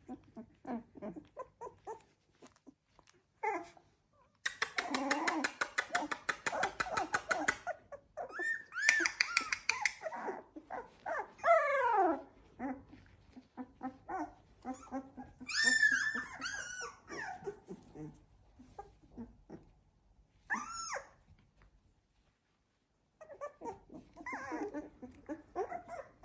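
Young Labrador puppies whimpering and squealing: a long, rapidly pulsing cry lasting about three seconds, then several high arching squeals and whines that fall in pitch, with softer whimpers between.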